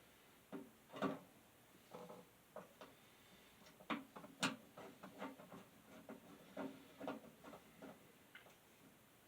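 Irregular small clicks, taps and knocks as parts of a box fan's housing are handled and worked on by hand, about a dozen in all, the loudest about four and a half seconds in.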